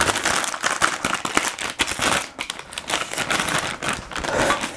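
A packet of wet wipes being handled, the wrapper and wipe crinkling and rustling in quick, irregular bursts.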